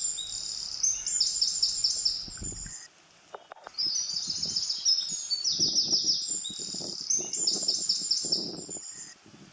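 A songbird singing repeated high, rapidly stuttering phrases in two bouts, with a short pause about three seconds in. Lower rough knocking or scraping sounds come in during the second half.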